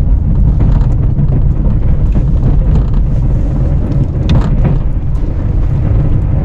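Snowplow truck driving, its engine and drivetrain making a steady low rumble.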